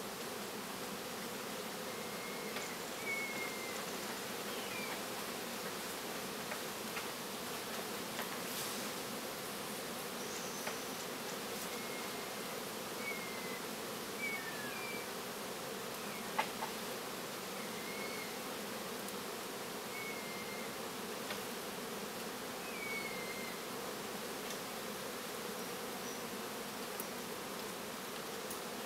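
Steady buzzing of many flying insects, with short high chirps every second or two.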